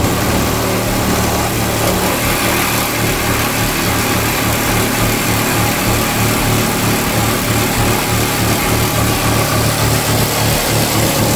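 Cordless reciprocating saw cutting through aluminium camper siding and the wooden strip on it. The saw runs without a break, with a steady loud buzz.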